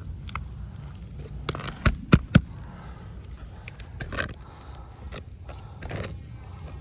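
Scraping and handling on asphalt roof shingles, with three sharp knocks in quick succession about two seconds in.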